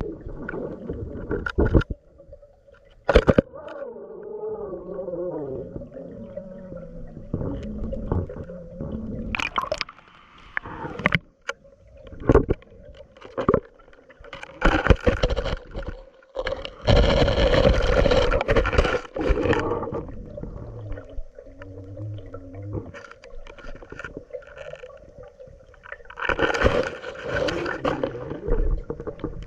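Water gurgling and sloshing around a submerged GoPro camera, with irregular knocks and scrapes and a faint steady hum. Two longer rushes of water noise come about halfway through and near the end.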